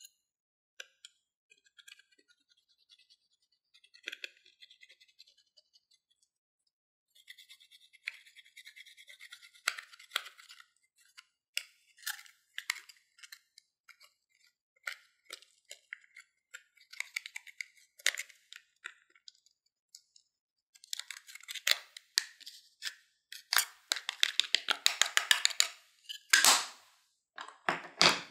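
A metal tool scraping and crumbling a pressed powder blush in its compact, a dry gritty scratching with small clicks. It starts sparse and becomes denser and louder in the last third.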